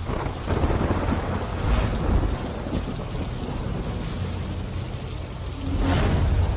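Rain falling with low rumbling thunder, and a sharp crack of thunder about six seconds in.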